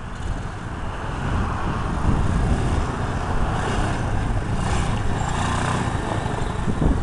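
Small 125cc ATV engine running; the revs rise about a second in and then hold steady as the ATV is driven in reverse.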